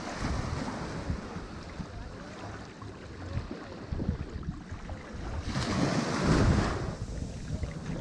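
Sea waves breaking and washing onto a shore, with a low rumble under the wash. A bigger wave surges in about five and a half seconds in and is the loudest moment before it falls back.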